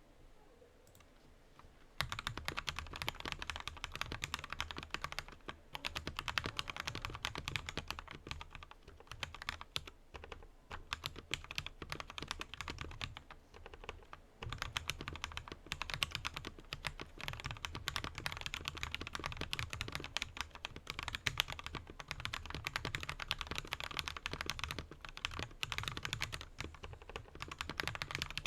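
Typing on a Meta71 mechanical keyboard with Akko Jelly Black linear switches and XDA-profile keycaps: a fast, continuous clatter of keystrokes that starts about two seconds in, with a couple of brief pauses.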